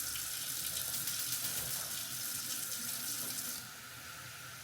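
Kitchen tap running into a pot to rinse rice, the water splashing steadily; the stream stops about three and a half seconds in.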